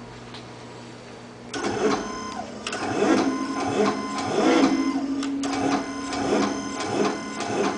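REXA Electraulic actuator's electric motors and hydraulic pump whirring in a series of short start-stop runs as the drive is modulated through step changes, starting about one and a half seconds in. The pitch of the whine shifts from move to move as the large and small motors take turns for large and small steps.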